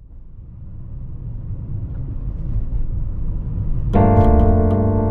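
Low rumble of a Mercedes-Benz W124 on the move, heard from inside the cabin and fading in. About four seconds in, background piano music with a light ticking beat starts over it.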